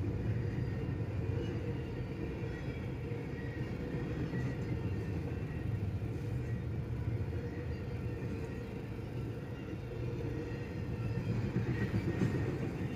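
Double-stack intermodal freight train cars rolling past a level crossing: a steady, deep rolling noise of wheels on rail, heard from inside a car at the crossing. The sound swells slightly near the end as the last cars go by.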